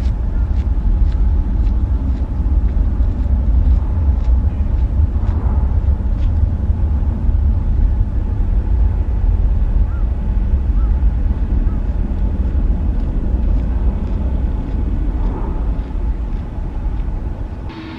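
Jet airliner engines giving a loud, steady, deep rumble as the plane passes low overhead, easing off near the end.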